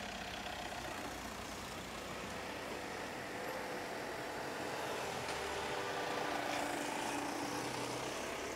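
A motor vehicle running steadily: an even hum of engine and road noise, with a faint tone that swells slightly midway.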